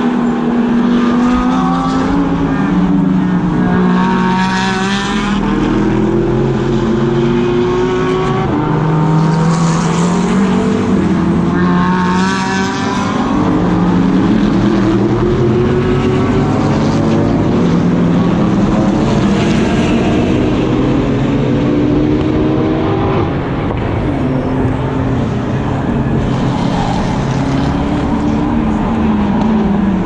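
GT race cars' engines at racing speed, several cars one after another: the pitch climbs in steps through the gear changes and falls away again as each car goes by.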